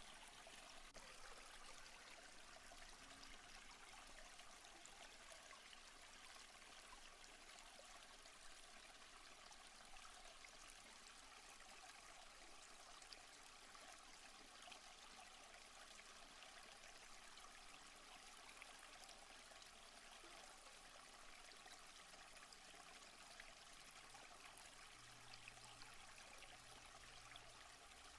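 Faint, steady rush of a stream and small waterfall flowing over rock.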